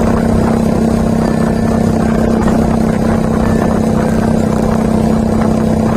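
Yamaha Vixion's single-cylinder four-stroke engine running at a steady cruising speed, a constant drone with no change in pitch.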